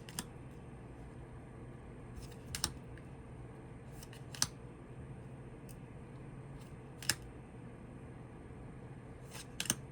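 Tarot cards being handled one at a time: a short, crisp snap or tap every two to three seconds, with two close together near the end, over a faint steady room hum.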